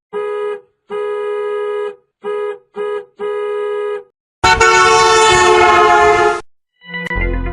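A horn honked five times at one pitch in an uneven short-long-short-short-long rhythm. It is followed by a louder, harsher horn blast of about two seconds, like an air or train horn. A different effect with a deep bass thump begins near the end.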